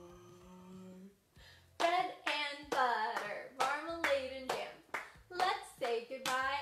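A children's song sung with hands clapping along: a held note at the start, a short pause, then lively singing from about two seconds in with claps roughly twice a second.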